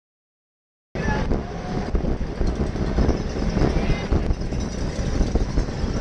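Wind buffeting a bike-mounted action camera's microphone at racing speed, a dense low rumble that cuts in suddenly about a second in.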